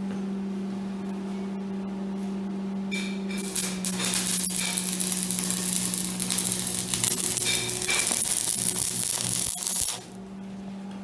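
Electric welder humming steadily, then an arc welding steel tubing, crackling and hissing for about seven seconds from about three seconds in and cutting off abruptly near the end; the hum carries on.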